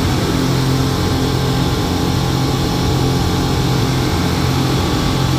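Speedboat engine running steadily, a low even drone under a loud constant rush of wind and water.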